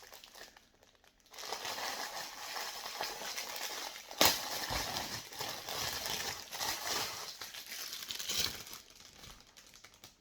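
Packaging crinkling and rustling in the hands as a t-shirt is unwrapped, starting about a second in, with one sharper crackle about four seconds in.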